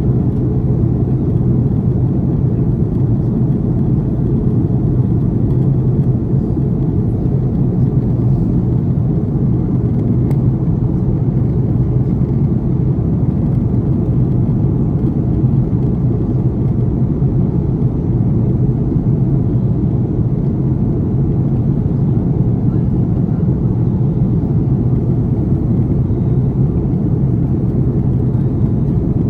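Steady low rumble of an Airbus A330 airliner, heard from inside the cabin: engine and airflow noise with no change in level.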